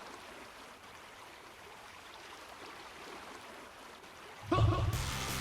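Faint, steady rush of flowing water, then background music starts abruptly and loudly near the end.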